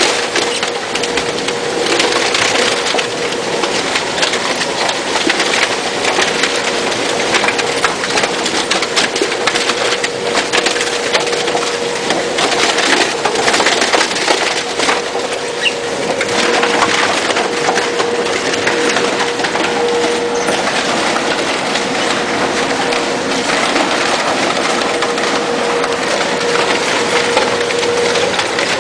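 Polystyrene recycling machine crushing expanded polystyrene (styrofoam): a dense, continuous crackling and snapping of the foam breaking up, over a steady motor hum.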